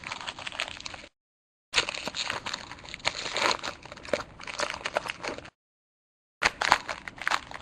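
Hockey card pack wrapper being torn open and crinkled by hand, a dense crackling rustle. The sound cuts out completely twice, about a second in and again about five and a half seconds in.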